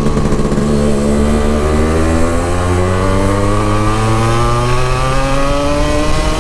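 Yamaha RX135's two-stroke single-cylinder engine, freshly serviced, accelerating hard in one gear: its pitch climbs steadily for about six seconds.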